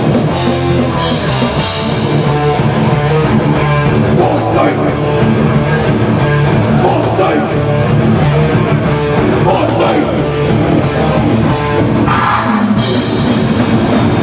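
Live heavy rock band playing loud: distorted electric guitars over a drum kit, with cymbal crashes about every two and a half seconds.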